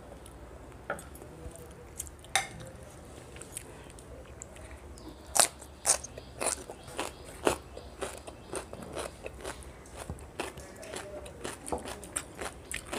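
Close-miked mouth sounds of someone eating rice with garlic chicken: chewing and biting with sharp, crunchy clicks. The clicks come thickest and loudest about five to eight seconds in.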